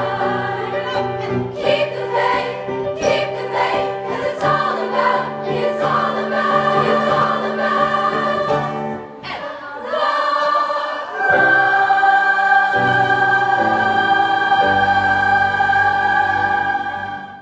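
Background music of a choir singing, settling on a long held chord about eleven seconds in that fades out at the very end.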